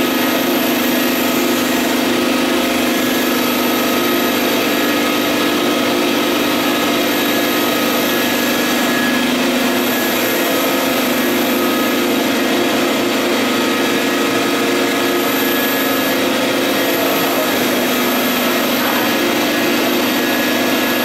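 Vutek UV-curing wide-format printer running while it prints, a steady mechanical hum and whine over a constant hiss.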